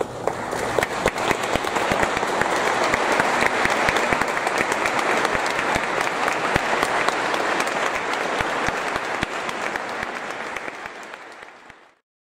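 Audience applauding. The clapping builds over the first couple of seconds, holds steady, then fades out to silence near the end.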